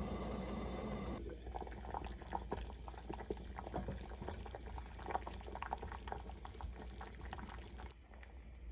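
Seaweed soup with abalone boiling in an enamelled cast-iron pot over medium-low heat. A steady hiss gives way after about a second to dense, crackling pops of bursting bubbles, which thin out near the end.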